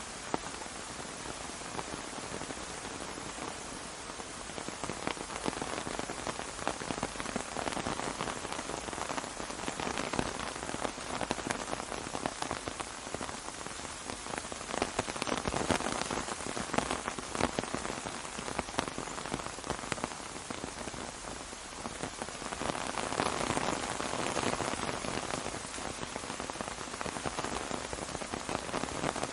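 Steady rain falling on an umbrella: a dense patter of drops that swells louder a few times and eases back.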